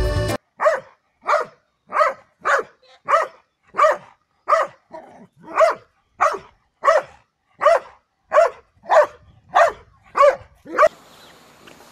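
A dog barking over and over in a steady rhythm, about sixteen short barks spaced a little over half a second apart, stopping shortly before the end.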